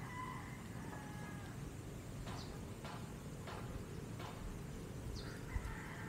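Rooster crowing twice, once at the start and again near the end, each call about a second and a half long, over a steady low wind rumble. A few short clicking chirps fall between the crows, and there is a brief low thump near the end.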